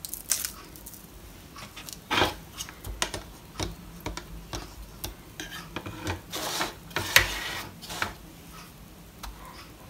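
Metal fork clicking and scraping against a plastic bowl as beaten egg is stirred: an irregular run of light taps and knocks, busiest about two seconds in and again near the two-thirds mark.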